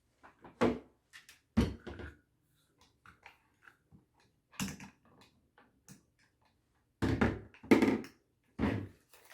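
Handling noise of a cardboard box being set down and a bolt-action rifle being moved about: a run of separate thunks and knocks, the loudest three coming close together near the end.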